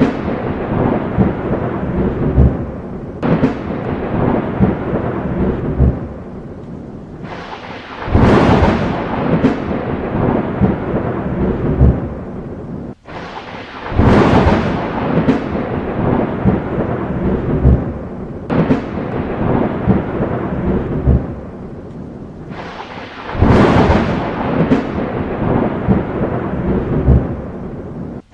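Thunderstorm: a sharp thunderclap about every five seconds, each trailing off into rolling rumble, over steady rain. A momentary drop-out breaks the sound about halfway through.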